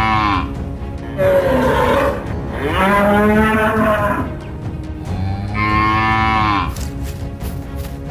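Cattle mooing four times in long, drawn-out moos, the first fading out just as the sound begins and the third the longest.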